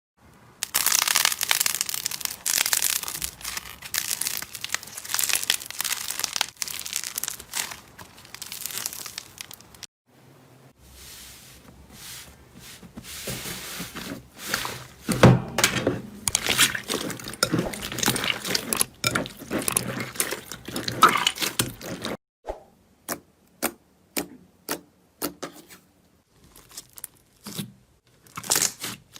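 Slime being squeezed, stretched and pressed by hand, making dense crackling and crinkling sounds. Near the end the crackling gives way to separate sharp clicks or pops at about two a second.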